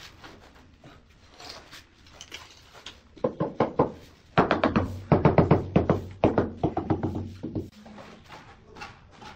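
Rapid flurries of gloved-hand strikes on a large ceramic wall tile, bedding it into the adhesive. A short flurry starts a little after three seconds in, then a longer, louder run follows from about four and a half seconds to nearly eight.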